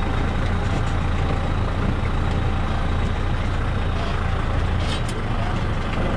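Tractor and tower air-blast sprayer running steadily: a constant low diesel hum under a broad rushing noise, with a few faint ticks about five seconds in.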